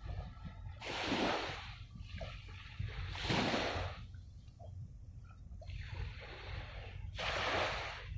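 Small waves washing onto the shore, three times, each wash lasting about a second, over a steady low wind rumble on the microphone.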